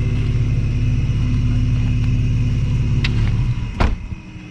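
Car engine idling, heard from inside the cabin, then shutting off about three and a half seconds in, followed by a sharp click.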